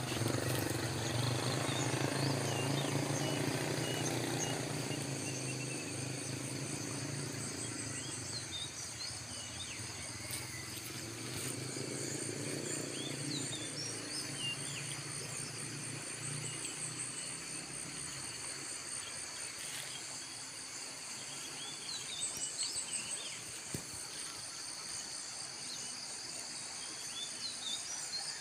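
Tropical insects droning steadily, high and buzzing, with pulsing trills, while birds chirp briefly here and there. A low engine hum fades over the first few seconds and comes back faintly a little before the middle.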